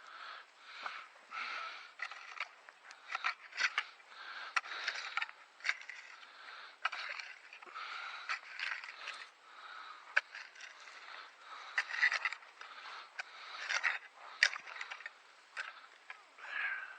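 Digging potatoes out of damp garden soil: irregular scraping strokes of the tool and soil, with sharp clicks scattered through.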